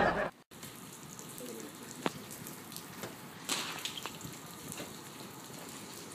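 A short loud burst of noise cut off abruptly at the start, then a steady outdoor background hiss with a few faint, irregular taps of footsteps on a concrete walkway.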